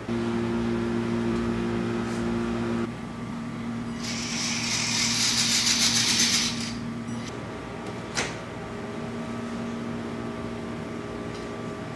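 Vaterra Slickrock RC rock crawler's electric motor and gears whirring as it drives over a tile floor. There is a steady low hum at first, a louder whir in the middle, and a single sharp click about eight seconds in.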